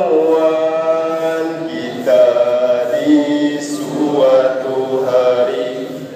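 A group of voices singing a slow, unaccompanied melody together in long held notes, with new phrases starting about two seconds in and again about four seconds in.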